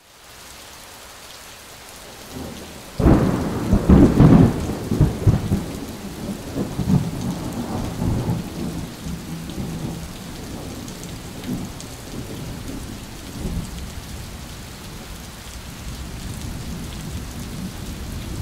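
Thunderstorm: steady rain hiss, with a loud thunderclap breaking about three seconds in and rumbling on. Fainter rolls of thunder follow.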